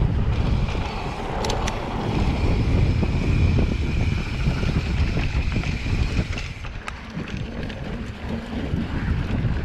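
Mountain bike ridden over a sandy dirt trail, heard from a handlebar-level action camera: heavy wind rumble on the microphone with tyre noise and scattered clicks and knocks from the bike over bumps. A thin steady high hum runs from about two seconds in to about two-thirds through, and the noise eases off a little near the end.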